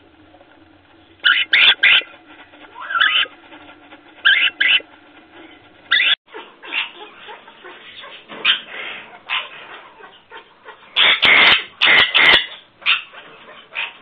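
Parrots making short, squeaky calls in quick groups of two or three, some sliding in pitch. Near the end comes a cluster of louder, harsher calls.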